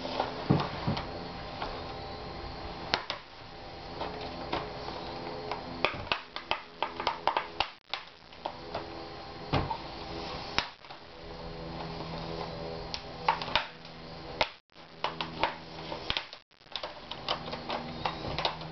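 Plastic retaining clips of a laptop screen bezel snapping loose as a fingernail pries around the edge: irregular clusters of sharp plastic clicks with short pauses between.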